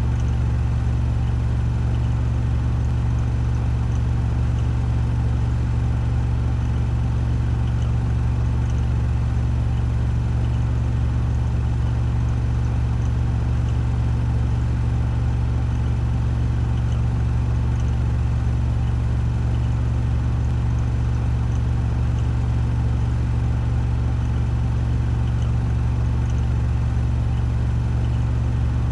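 Washing machine on a 1400 rpm spin cycle: a steady low drone that holds even throughout.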